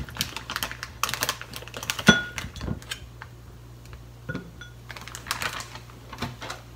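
A metal spoon clinking and scraping against a small ceramic bowl while pickled cucumber chunks are spooned out of a crinkling plastic zip-top bag. The loudest clink, about two seconds in, rings briefly.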